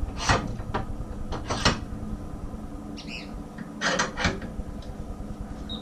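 Knocks and clatters of a mower blade and table vise being handled and adjusted, a handful of sharp strikes with a brief squeak about three seconds in.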